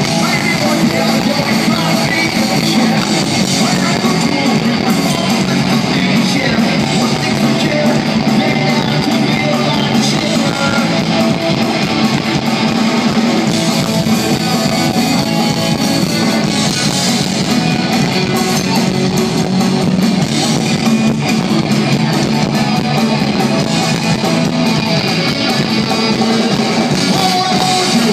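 A rock band playing live: distorted electric guitars, bass guitar and drums, with a singer on a handheld microphone.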